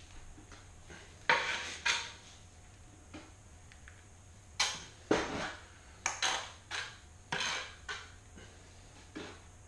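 Steel trowel scraping and spreading thinset mortar across the back of a large porcelain tile, back-buttering it before setting: about ten short, sharp scraping strokes in quick succession, with clattery metal-on-ceramic contact.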